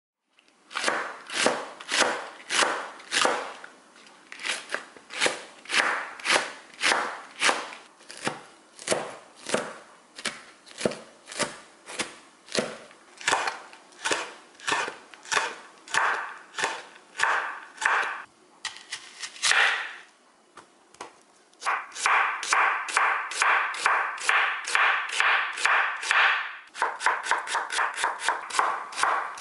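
Kitchen knife chopping chili peppers and onion on a wooden cutting board, in steady knocks about two a second. After a brief pause about two-thirds of the way in, it turns to a faster run of quick mincing strokes.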